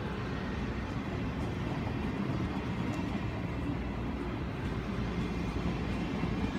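E1000-series push-pull Tze-Chiang express train rolling along the track, a steady low rumble.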